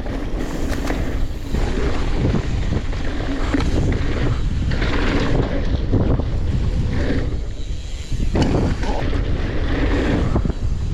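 Wind buffeting the microphone of a mountain biker's camera during a fast trail ride, a steady loud rush heaviest in the low end.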